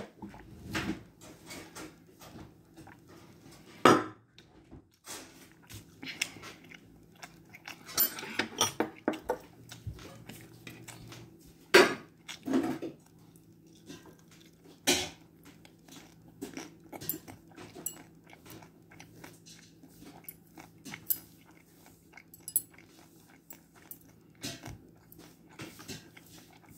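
A child chewing food close to the microphone, with irregular sharp clinks and taps of stainless-steel chopsticks and tableware; a few of the clinks stand out loudly.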